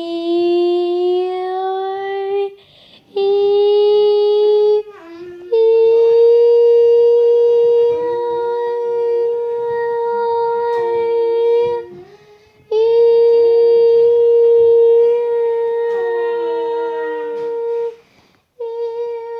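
Siren tone that starts with a rising wail and then holds a steady high note. It drops now and then to a lower note and cuts out briefly a few times before starting again.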